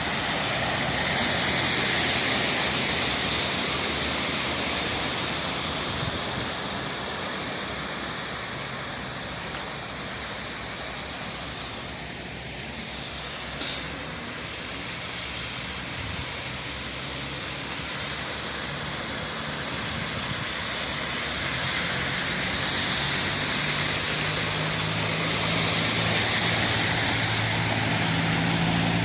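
Vehicle travelling along a flooded road: a steady hiss of tyres and water with a low engine hum, fading a little in the middle and swelling louder near the end.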